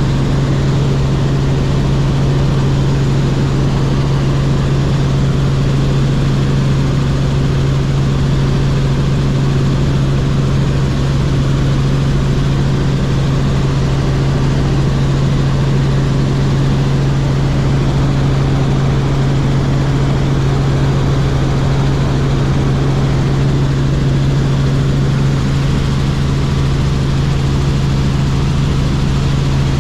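Robinson R44 helicopter in flight, heard from inside the cabin: a loud, steady drone of the six-cylinder Lycoming piston engine, transmission and rotors, with a strong low hum that never changes.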